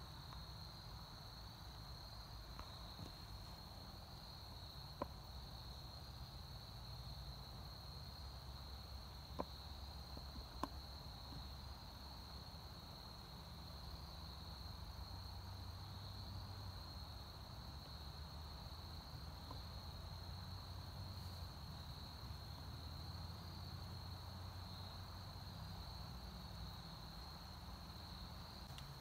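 Quiet woods with a steady high insect trill, typical of crickets, over a low rumble, with a few faint clicks around five to eleven seconds in.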